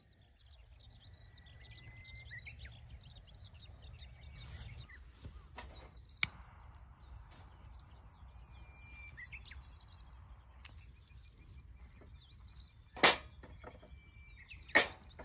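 Birds chirping and singing throughout, with a few small clicks in the middle. Near the end come two loud, sharp wooden knocks as pieces of cut lumber are dropped onto a metal fire stand.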